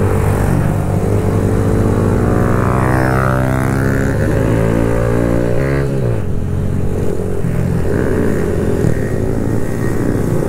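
Kawasaki Z125's single-cylinder 125cc four-stroke engine, fitted with an aftermarket full exhaust, running steadily under way. A second engine's note crosses it around three to four seconds in. About six seconds in, its pitch falls sharply, and it then runs lower and rougher.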